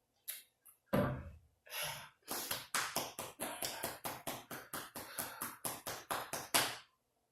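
A heavier knock about a second in, then a steady run of light taps, about four a second, for several seconds.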